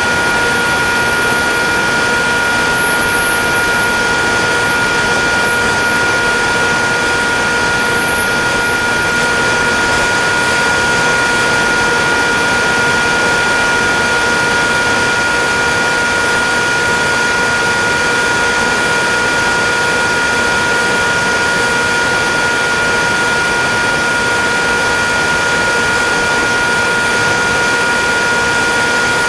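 Ritewing Drak flying wing's electric pusher motor and propeller in flight, heard from the onboard camera. A steady droning whine runs at constant pitch over a loud, even rush of air, with a thin, very high whine above it.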